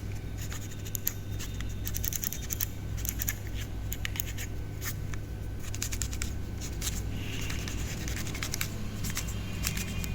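Irregular scratchy rubbing and small ticks as the inside of an opened computer mouse is wiped and cleaned dry after being sprayed with deodorant.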